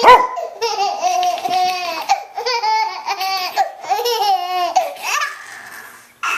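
Baby laughing in repeated high-pitched bouts of quick, pulsing giggles, dying away about five seconds in. A sharp knock right at the start.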